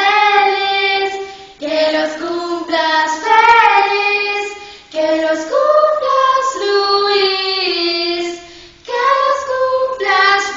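Two young women singing together unaccompanied, in four sung phrases with short breaths between them.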